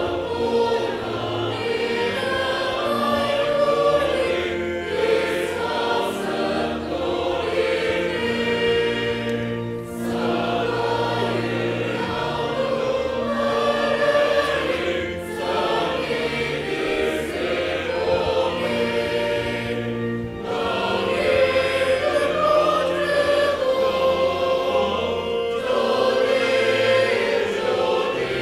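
Church choir singing a Christmas hymn in phrases with short breaths between lines, over steady sustained low notes of an instrumental accompaniment.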